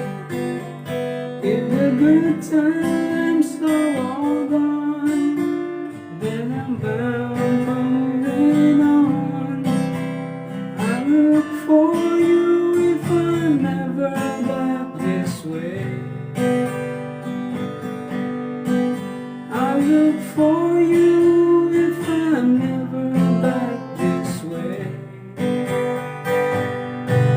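Acoustic guitar strumming steadily, with a pitched melody line sliding up and down over the chords, in a wordless instrumental break of a folk song.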